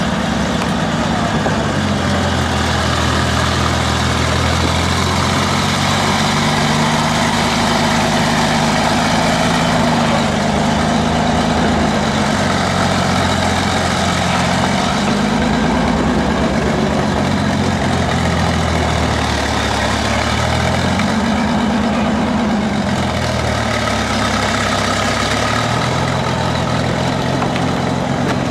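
Sturmgeschütz assault gun's engine idling with a deep, heavy hum, its pitch rising and falling a few times as it is revved.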